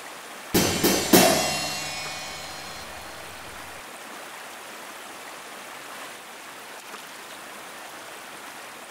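Three quick strokes of a chinchinero's bass drum and cymbals, about a third of a second apart, the last leaving a cymbal ring that dies away over about two seconds. After it a steady rushing noise carries on.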